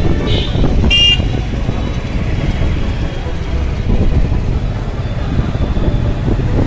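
Busy city road traffic with a steady low rumble. A short, high vehicle horn toot sounds about a second in, with a briefer one just after the start.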